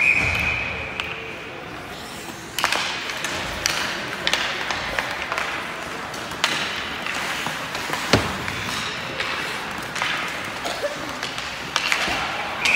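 Ice hockey play in an arena: a short high whistle blast at the start, then sticks clacking on the puck and ice and skates scraping. A sharp crack comes about eight seconds in.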